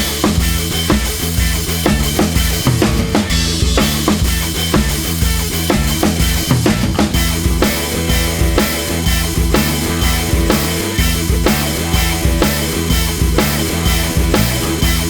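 Background rock music with a steady drum-kit beat and a moving bass line.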